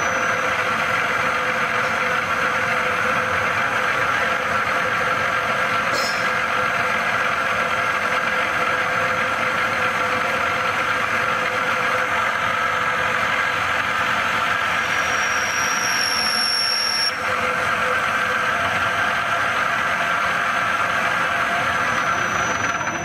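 CNC milling machine spindle running steadily at about 1000 rpm while a simple program moves the cutter and table. There is a single tick about six seconds in and a brief high whine about two-thirds of the way through.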